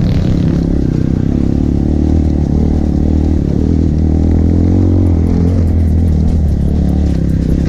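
Trail motorcycle engine running steadily while being ridden off-road, its pitch shifting a little with the throttle around the middle.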